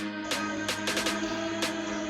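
Background electronic music with a steady beat and sustained synth tones.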